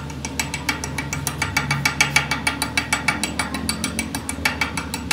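Rapid, even metal-on-metal taps, about seven or eight a second, as a steel chipping tool knocks slag off fresh weld built up on the end of a truck axle tube.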